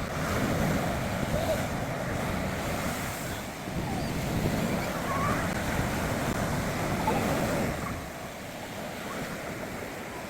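Sea surf breaking and washing up on the beach, a steady rush of rough waves, with wind on the microphone. The wash is louder for most of the stretch and eases near the end.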